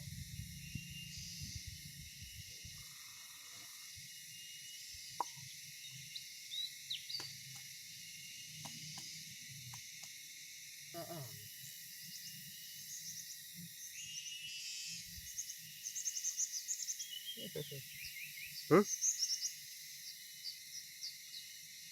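Swamp ambience: a steady chorus of insects with scattered chirps, over low rustling and handling noise, with a few short clicks and brief sharp sounds in the second half.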